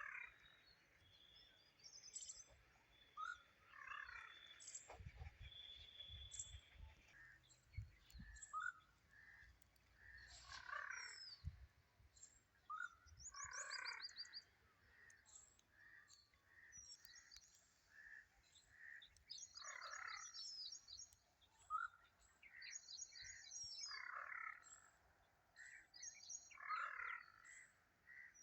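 Several birds calling on and off: repeated short chirps and quick high trills. A few low thumps sound in the first third.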